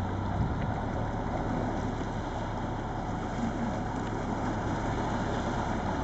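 A small fishing boat's engine idling with a steady low hum.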